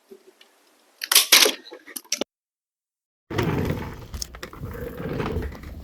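Handling noise: a quick cluster of sharp clicks and cracks about a second in, a moment of dead silence, then a rustling, scraping rumble with small clicks to the end.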